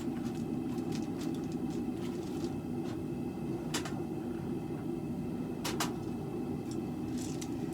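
Propane forge burner running with a steady roar, with a few light metallic clicks, the loudest a double click a little before six seconds in.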